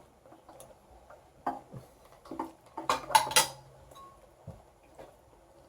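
Spoons clinking and tapping against soup bowls during a meal: scattered short knocks, with the loudest cluster about three seconds in.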